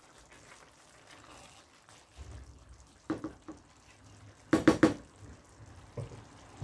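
Wooden spatula stirring rice in a nonstick pan, followed by a quick run of loud knocks about halfway through, from the spatula struck against the pan, and one more knock near the end.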